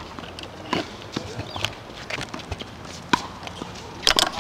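Irregular knocks, clicks and scuffs from a camcorder being handled and swung on its monopod stand, with the loudest cluster of knocks near the end.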